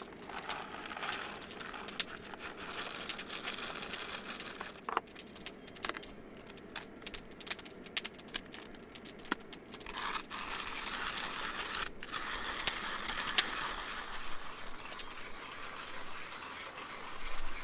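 Manual coffee grinder being filled and worked by hand: whole coffee beans rattling and crunching, with many scattered clicks and knocks of the grinder's parts.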